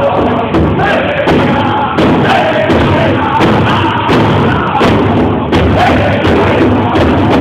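A powwow drum group singing together over a big powwow drum struck in a steady beat.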